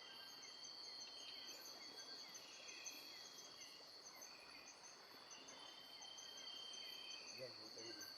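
Faint chorus of night insects, crickets among them: a steady high drone with rhythmic chirping over it and short trills coming and going.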